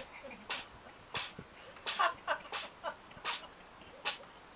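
Cat sneezing repeatedly in a fit: a quick series of about eight short, sharp sneezes, one every half second or so.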